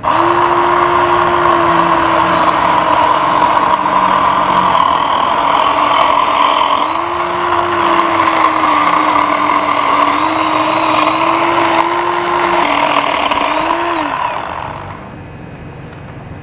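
Battery-powered electric chainsaw running at full speed and cutting into a tree. Its steady whine starts abruptly, dips in pitch several times as the chain bogs under load, and cuts off about fifteen seconds in.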